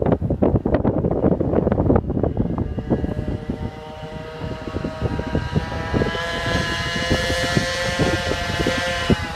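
GoPed GSR 46R scooter's small two-stroke engine running at high revs with a buzzing whine that slowly climbs in pitch as it speeds up. Heavy wind buffeting on the microphone fills the first few seconds and continues more lightly under the engine.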